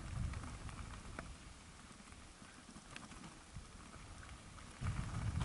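Mountain bike rolling fast downhill on a loose gravel track: tyres crunching over stones, with scattered sharp clicks and rattles from the bike. Wind rumbles on the microphone and grows much louder near the end.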